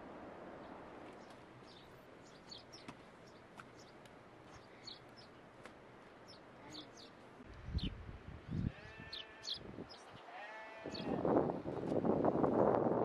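Livestock bleating: two wavering calls about two-thirds of the way in, over faint high chirps, followed near the end by a louder stretch of rough noise.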